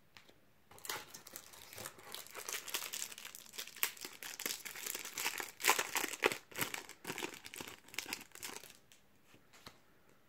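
Foil wrapper of a Topps Match Attax trading-card booster pack crinkling and tearing as it is ripped open by hand: a dense run of crackles that starts about a second in and stops shortly before the end.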